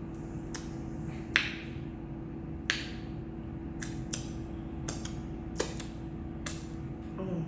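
Close-miked eating sounds: scattered sharp mouth smacks and clicks of chewing, about eight in seven seconds, over a steady low hum.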